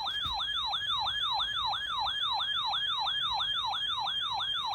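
A weather radio receiver's electronic siren alarm, warning of an incoming alert. It is a fast yelp, sweeping up and down about four times a second at an even level.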